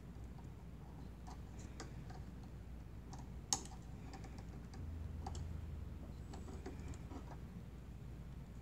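Faint, scattered light clicks of metal tweezers and a small pick tool against the take-up lever of a Brother PE770 embroidery machine as stray thread is picked off it, with one sharper click about three and a half seconds in.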